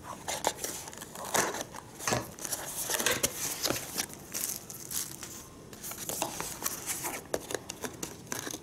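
A small cardboard box being cut open with scissors and unpacked by hand: irregular snips, scrapes, and rustling of the flaps and paper insert.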